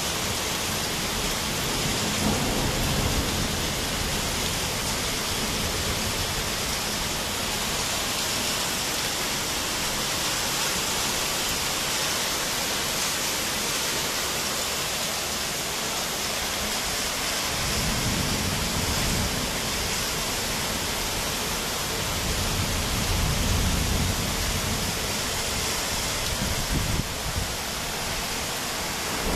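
Heavy rain falling steadily during a thunderstorm, with low rumbles of thunder a few times: faintly about two seconds in, then more strongly past the middle and again near the end.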